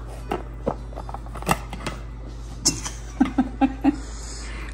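Plastic disposable food containers being handled: scattered sharp clicks and taps, with a steady low hum underneath.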